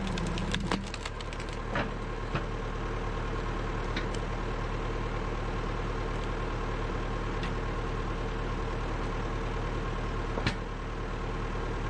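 Massey Ferguson 165 tractor engine running steadily as it powers a hydraulic log splitter, with a few sharp cracks and knocks scattered through as the splitter works the wood.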